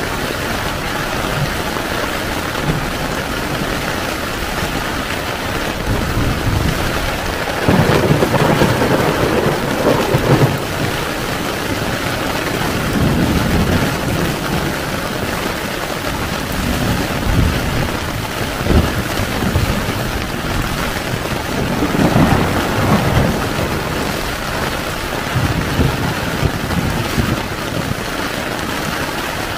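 Heavy rain falling on a tent, an even hiss, with several low rumbles of thunder rising and fading, the loudest about eight seconds in.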